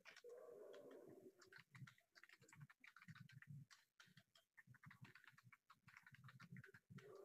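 Faint computer keyboard typing: quick, uneven key clicks.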